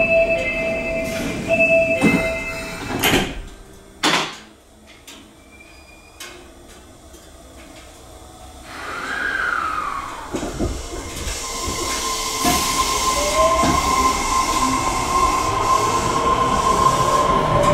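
Inside the car, sliding doors close with a couple of thuds. After a lull, the Osaka Metro 400 series' Hitachi hybrid SiC VVVF inverter starts up as the train pulls away: a steady inverter whine with motor tones rising in pitch and running noise growing as it accelerates.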